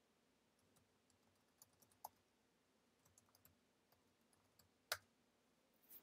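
Faint typing on a computer keyboard: a loose string of short key clicks, with one louder keystroke about five seconds in.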